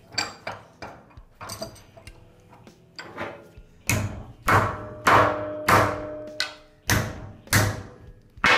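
A hammer beating a polycarbonate snake restraining tube against a metal bench top in a strength test. A few light knocks come first, then from about four seconds in heavy blows fall about every half second, some followed by a short metallic ring. The tube comes through unbroken.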